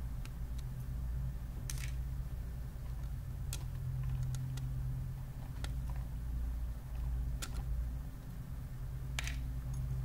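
A steady low hum with a handful of light clicks spaced a second or two apart, from a small screwdriver and tiny screws as the cooling fan is unscrewed inside an open laptop.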